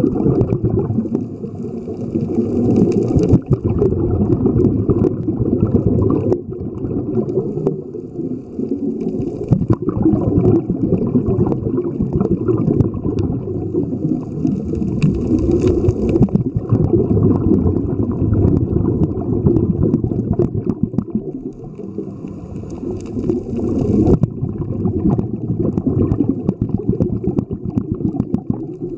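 Muffled underwater rumble and gurgling of water moving against a camera held underwater, with scattered clicks and a few brief bursts of higher hiss.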